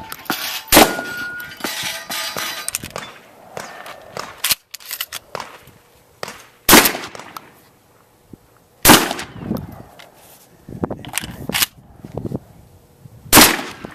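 Pump-action shotgun fired four times: about a second in, twice close together around the middle, and once near the end, each blast with a short echo. Between the shots come smaller metallic clacks, and a steel target rings after the first shot.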